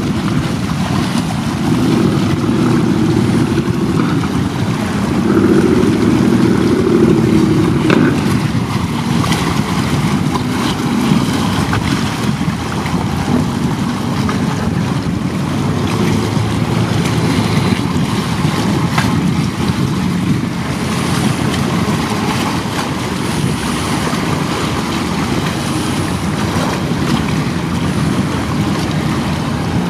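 Wind blowing across the microphone as a loud, steady rush, gusting harder between about two and eight seconds in, over waves on choppy open water.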